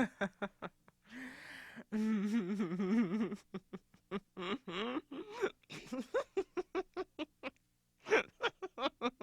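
A woman giggling in quick runs of short, breathy bursts, with a breath about a second in and a drawn-out, wavering giggle just after. There is a brief pause near the end, then another run of giggles.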